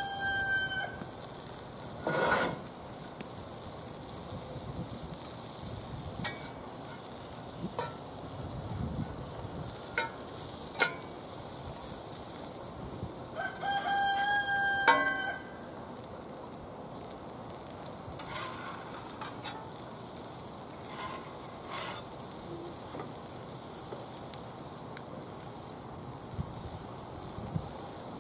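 A rooster crows twice, once as it begins and again about 14 seconds in, each a long held call. Under it, pancakes sizzle steadily in oil in a cast-iron skillet over a wood fire, with occasional clinks of a metal spatula on the cast-iron pans.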